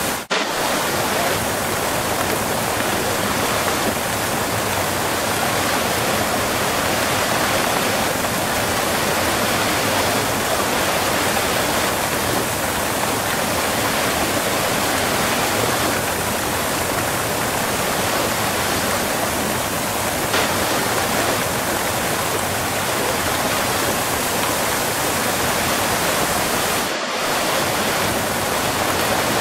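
Waterfall heard close up: steady, dense rushing of falling water.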